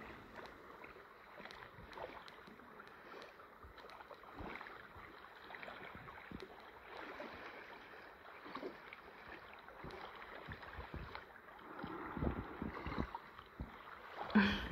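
Faint paddling on calm lake water: a stand-up paddleboard paddle dipping and pulling, with small irregular splashes and drips from the blade. A louder bump comes near the end as the board reaches the shore.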